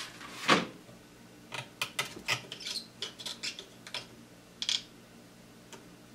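A knock about half a second in, then scattered small clicks and taps of a test lead and fingers working against the terminals inside a Fender Champ tube amp chassis, over a faint steady low hum.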